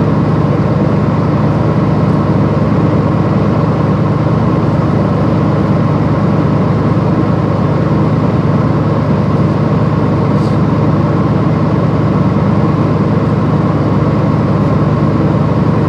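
Truck engine idling steadily, heard from inside the cab.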